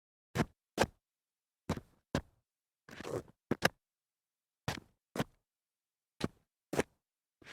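Feet shuffling on concrete: short scuffing steps in pairs about half a second apart, each pair about every one and a half seconds, with a longer scrape about three seconds in.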